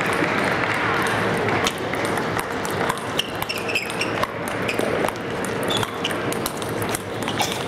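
Sounds of a bout in a large hall: a steady crowd murmur with scattered sharp clicks and short high squeaks.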